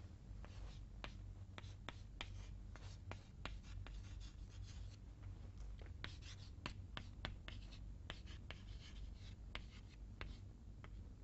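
Chalk writing on a chalkboard: a quick, irregular run of sharp taps and short scratches as letters are written, faint over a steady low hum.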